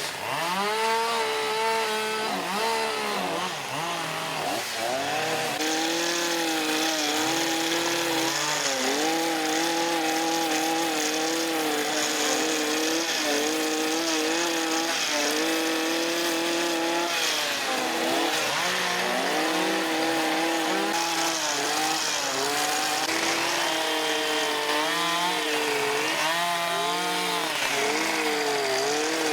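Chainsaws carving wood, their engines revving up and dropping in pitch as the chains bite and ease off. More than one saw runs at once, at different pitches.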